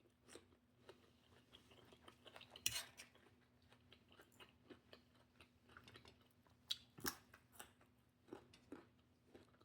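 Quiet chewing of salad with scattered light clicks of a fork on a plate, sharper clicks about three seconds in and again about seven seconds in.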